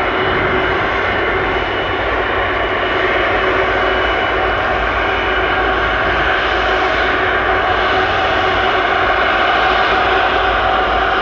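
Airbus Beluga XL's two Rolls-Royce Trent 700 turbofans running as the aircraft taxis and turns onto the runway. A steady jet whine over a rushing hiss, growing slightly louder toward the end.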